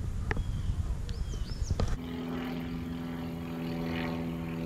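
Open-air background noise with a few sharp handling clicks and several short high chirps. About two seconds in, at a cut, a steady droning hum of several pitches takes over and holds level.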